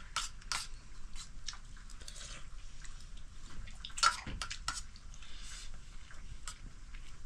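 Scattered light clicks and taps of kitchen utensils and pots being handled while cooking, with one louder knock about four seconds in.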